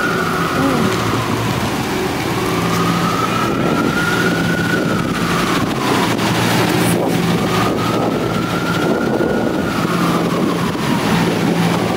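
City street traffic noise with an emergency-vehicle siren wailing through it, its pitch slowly rising and falling about every four to five seconds.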